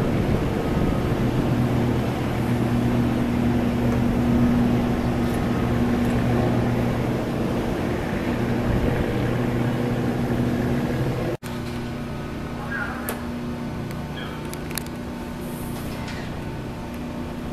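Steady low machinery hum from a moored high-speed ferry, with wind and background noise. The sound cuts out for an instant about eleven seconds in, then the hum carries on a little quieter with a few faint clicks.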